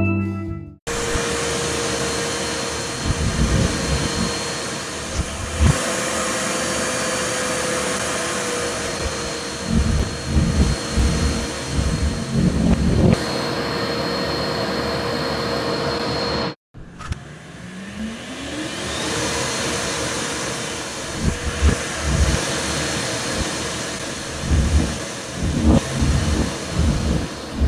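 Shop vac motor running with a steady whine and rushing air, broken by irregular low thumps and flutters as clothing is pulled into the hose. About 17 s in, the sound cuts out briefly and then comes back with a rising pitch as the motor winds up again.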